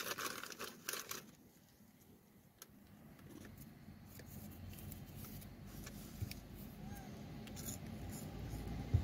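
A road vehicle approaching, its low engine rumble growing steadily louder through the latter part. In the first second or so, a flurry of crackling, crinkling clicks.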